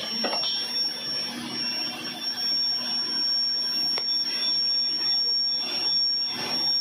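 Air drilling rig and its air compressor running steadily, with a high whistling tone and a low hum over a noisy rush; a single sharp click about four seconds in.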